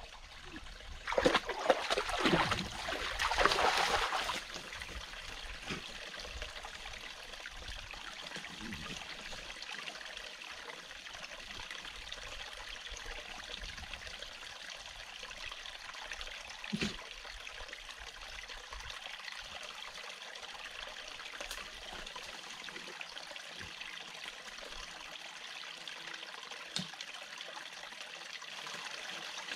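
A small forest stream trickling steadily into a pool. About a second in comes a few seconds of loud splashing as a German Shepherd wades out of the water. A couple of faint knocks follow later.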